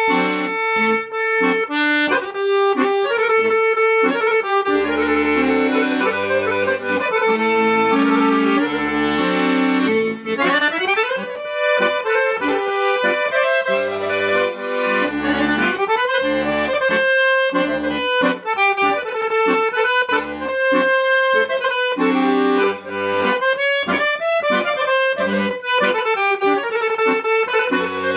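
Background music played on accordion in a traditional folk style: a busy melody with quick rising runs over a pulsing bass line.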